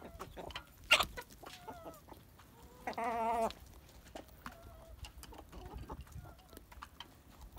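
Chickens feeding: soft short clucks over many sharp taps of beaks pecking, with one loud tap about a second in. About three seconds in comes a half-second wavering squawk.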